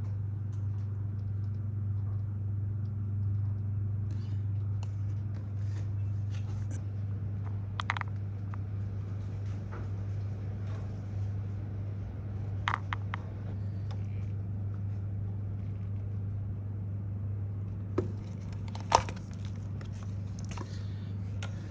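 BMW R1200GS boxer flat-twin engine idling in neutral with a steady low hum, running smoothly. A few short clicks or knocks come about 8, 13, 18 and 19 seconds in.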